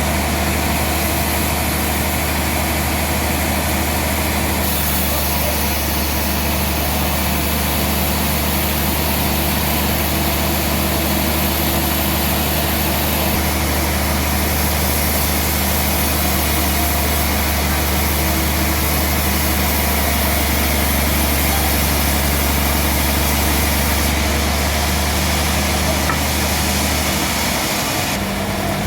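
Sawmill machinery running steadily with a low, even motor hum; the lowest part of the hum cuts off near the end.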